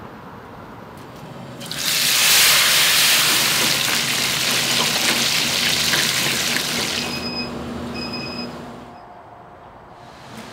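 Water gushing hard for about five seconds, then easing off, with two short electronic beeps near the end.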